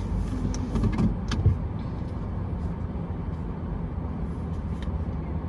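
Car engine idling, heard from inside the cabin as a steady low hum, with a few short clicks and knocks in the first second and a half.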